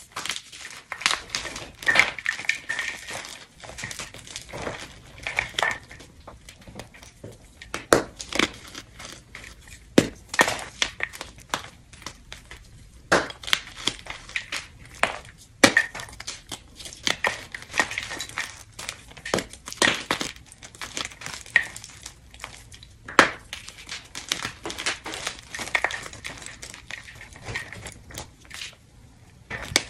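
Blocks of gym chalk being crushed and crumbled by hand, with chunks and powder falling into a bowl of broken chalk. The sound is a run of irregular crunches and crackles.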